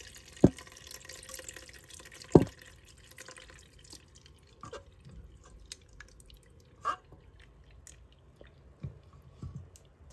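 Whey pouring and dripping through a metal mesh strainer as freshly curdled chhena (milk split with vinegar) is drained: a trickling rush for the first few seconds, then scattered drips. Two sharp knocks, about half a second and two and a half seconds in, are the loudest sounds.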